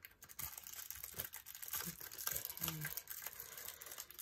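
Small plastic bag of diamond-painting drills crinkling and rustling as it is handled, in quick, irregular crackles.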